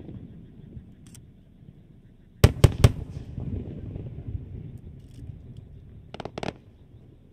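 Fireworks exploding overhead. A faint crack comes about a second in, then three sharp bangs in quick succession with a rumbling echo after them, and near the end a short cluster of crackling pops.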